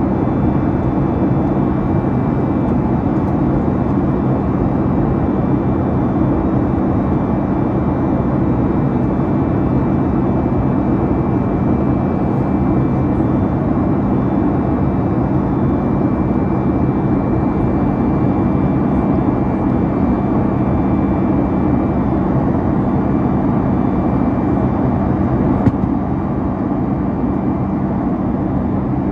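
Steady cabin noise inside a Boeing 737-8 MAX: the drone of its CFM LEAP-1B engines and airflow, with a steady low hum. A short click comes near the end, after which the noise is slightly quieter.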